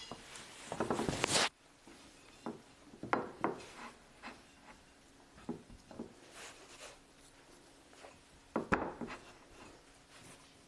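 Hands kneading and crumbling a dry parmesan and lupin-flour dough on a ceramic plate: soft rubbing and pressing with light scattered taps, and one sharper knock about nine seconds in. It opens with a loud rustle that cuts off suddenly after about a second and a half.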